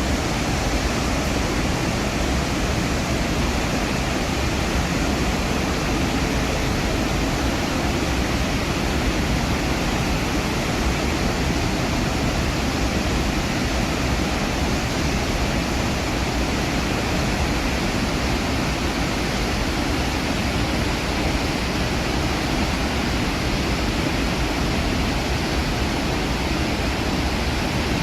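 Iguazu Falls thundering: a steady, dense roar of heavy falling water, strongest in the lows.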